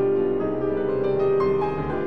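Slow instrumental piano music with sustained notes.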